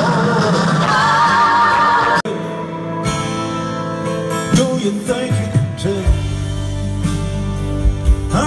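Live rock concert recorded from the audience. After an abrupt cut about two seconds in, a man sings over acoustic guitar, and bass and the band come in about six seconds in.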